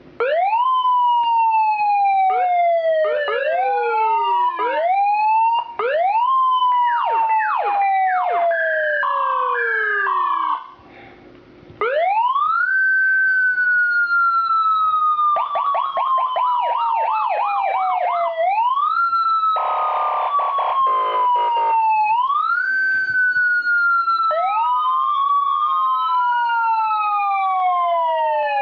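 A run of emergency-vehicle siren tones, one after another: long wails that rise quickly and fall slowly, fast short up-and-down sweeps, a two-note alternating pattern, a rapid yelp, and a pulsing buzz, with a brief break about eleven seconds in.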